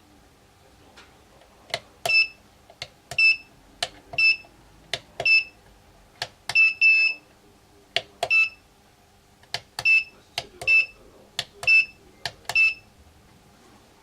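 Keys being pressed one after another on a JOD1Diginew flap-covered wireless alarm keypad: each press is a small click followed by a short, high beep that acknowledges the key, about ten in a row, roughly one a second, with one pair of beeps close together near the middle.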